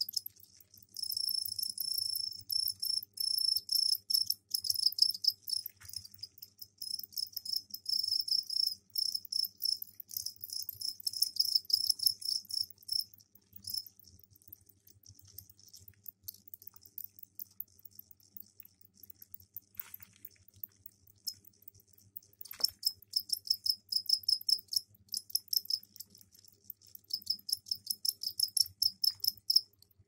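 Male two-spotted crickets chirping their mating call, fast pulsed trills in a high pitch. They trill steadily for a few seconds near the start, thin out and grow quieter in the middle, then pick up densely again near the end.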